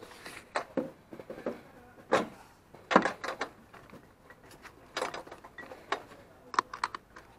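Scattered clicks and knocks of handling around a go-kart cockpit, with no engine running, with a quick run of small clicks near the end.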